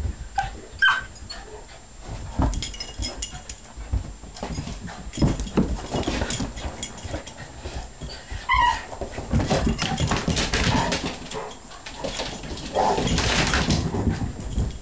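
A mini bullmastiff and a puggle playing rough: scuffling, thumps and knocks of paws and bodies, with a few short high whimpers and yips, one about a second in and one more about halfway through.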